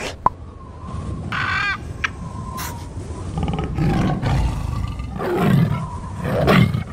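Logo-animation sound effects of a tiger roaring and growling in several surges, the loudest near the end, after a sharp click and a short pitched call in the first two seconds.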